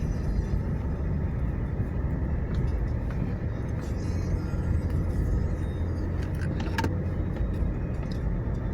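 Steady low rumble of a car driving, heard from inside: engine and tyre noise with no change in pace, and a single short click about seven seconds in.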